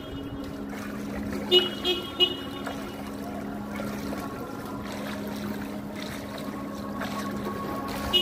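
Steady vehicle hum with a car horn tooting three short times in quick succession about a second and a half in.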